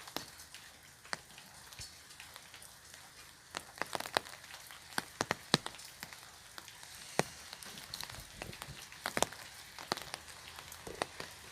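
Raindrops falling on an umbrella: irregular sharp taps, some much louder than others, over a faint steady patter of rain.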